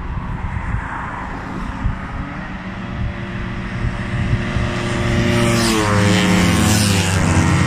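A column of motor scooters riding past close by, their engines growing louder from about halfway through as the leading riders reach the camera, several engine notes overlapping and sliding in pitch. Wind rumbles on the microphone.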